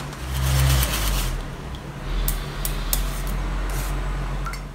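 Beaten egg and soy milk mixture trickling through a fine metal mesh sieve into a steaming tray, with a few light taps of a wire whisk against the sieve. A low steady hum runs underneath, louder in the first second.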